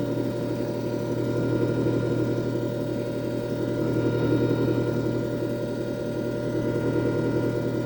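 JFJ Easy Pro disc repair machine running: a steady motor hum with a faint held whine above it, unchanging throughout.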